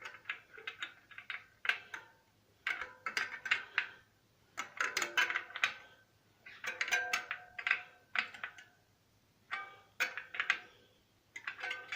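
Steel spokes of a bicycle wheel clicking and pinging in short metallic clusters as the spoke nipples are checked and tightened with a spoke key. Some pings ring briefly, and a cluster comes about every second.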